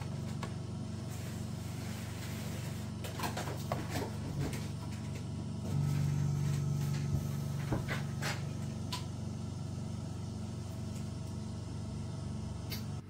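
Steady low mechanical hum, growing a little louder for about two seconds in the middle, with a few faint clicks.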